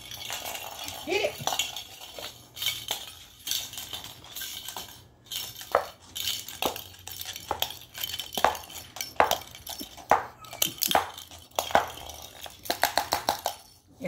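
Small plastic ball toy clinking and rattling in short, irregular bursts as a cockatoo picks it up, drops it and knocks it about on a wooden floor, with a quick run of rattles near the end.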